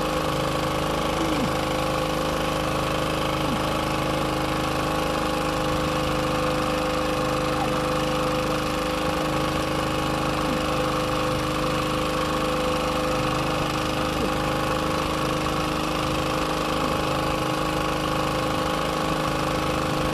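A boat's engine running steadily at idle, an even, unchanging drone.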